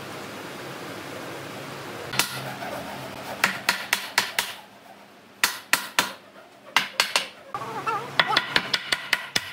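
Hammer striking wood in quick runs of sharp blows, a single blow first and then bursts of several, coming fastest near the end.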